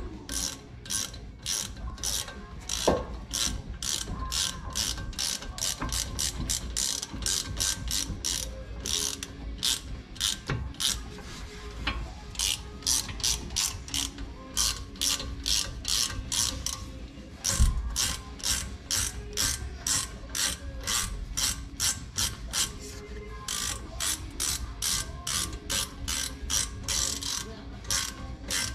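Hand ratchet wrench clicking in runs of quick, even strokes, about two to three clicks a second, with short pauses between runs, as the brake caliper bolts are tightened. A single low thud about two-thirds of the way through.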